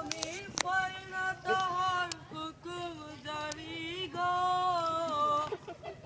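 A high voice singing a slow melody in long held notes that glide from one to the next, with no clear accompaniment.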